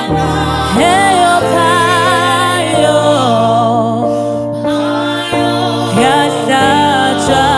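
Gospel music: a voice singing long, wavering held notes over sustained accompaniment.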